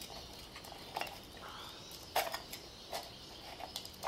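Utility knife blade cutting a sheet of gasket material, traced around a steel valve cover: a run of quiet, irregular scratches and small clicks as the blade is drawn and repositioned.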